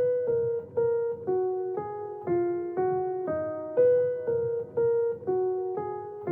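Background music: a slow keyboard melody of single piano-like notes, about two a second, each fading before the next.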